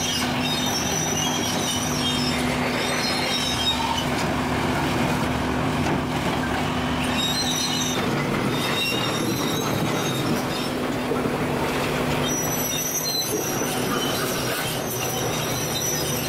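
Tracked demolition excavator's diesel engine running steadily while its grab works steel tram rails out of the street, with high metallic squeals of steel on steel that come and go, loudest near the start and from the last few seconds.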